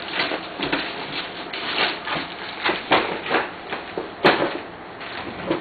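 Gift-wrapping paper being torn and crumpled by hand, a run of irregular rips and rustles, the loudest about four seconds in.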